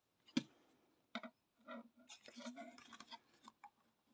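Plexiglass diamond-painting stand pieces handled and slotted into their plastic base: a sharp click about half a second in, another about a second in, then a stretch of light rubbing and small taps of plastic.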